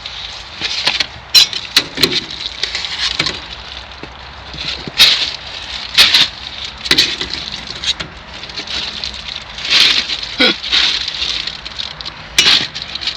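Plastic bag crinkling and rustling as it is rummaged through, with irregular sharp crackles and clicks.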